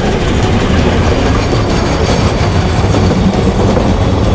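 Narrow-gauge steam train of the Rasender Roland line passing close by: the locomotive and then its carriages rolling past with a steady rumble and clickety-clack of wheels over the rail joints.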